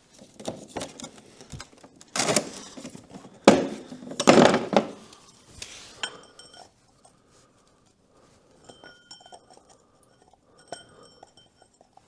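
Metal oil filter wrench cups clinking and clattering as they are handled and tried on the oil filter. The louder knocks come in the first five seconds, followed by lighter taps that leave a brief metallic ring.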